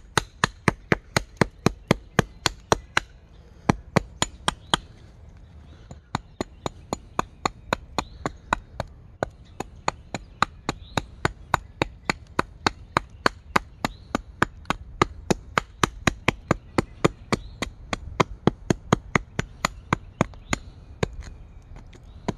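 Small carving axe chopping a cherry wood spoon blank on a chopping block. Quick, light strikes at about three a second, with a short pause about five seconds in.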